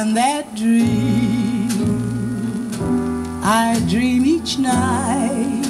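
A vinyl record playing on a turntable: music with a wavering, sliding sung melody, picked up by a camera microphone.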